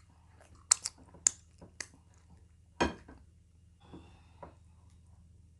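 Close-miked eating sounds of fufu and egusi soup eaten by hand: a handful of short, sharp wet mouth clicks and smacks, with one louder knock about three seconds in and softer clicks after it.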